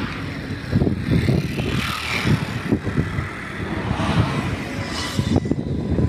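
Wind buffeting the microphone in irregular gusts: a low, uneven rumble, with a softer hiss of moving air above it.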